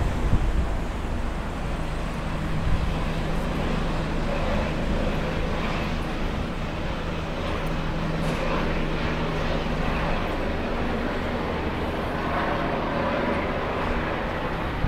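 Helicopter flying away overhead, its rotor and engine making a steady drone.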